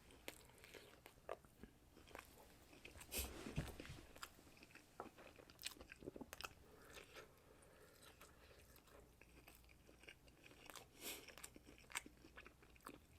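Faint chewing and mouth noises of a person eating boneless chicken bites: scattered small clicks, with a louder cluster about three seconds in.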